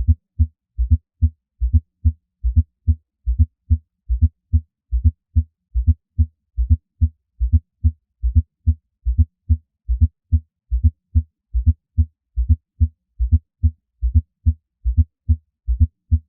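Heart sounds heard through a stethoscope: a steady run of short, low-pitched beats with an extra low sound in diastole added to each lub-dub, a gallop rhythm.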